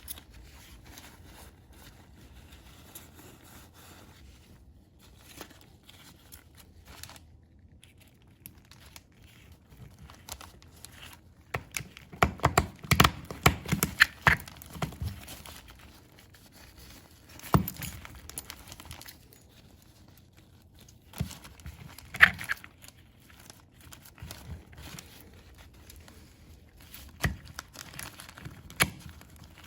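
Hands handling parts and wiping material at a workbench: paper or plastic rustling and crinkling, with scattered light clicks and knocks, a busy run of them about twelve to fifteen seconds in and single knocks later on.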